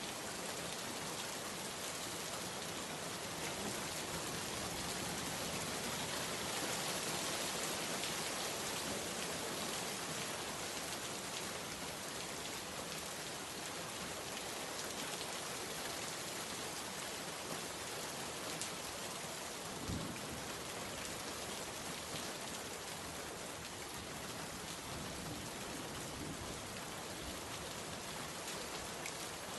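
Steady rain falling, a dense hiss of many drops pattering on a surface, with one brief low thump about two-thirds of the way through.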